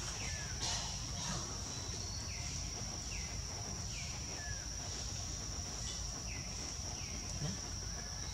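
A steady, high-pitched insect drone, with a short falling chirp repeating about once a second over it and a low rumble underneath.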